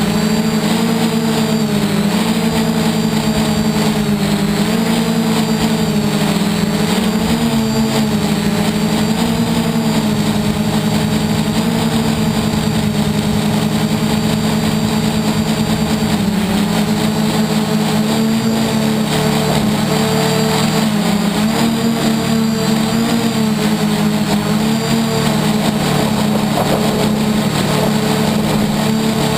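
Y6 multirotor's electric motors and propellers in flight, a steady buzzing hum whose pitch keeps sliding up and down a little as the throttle changes.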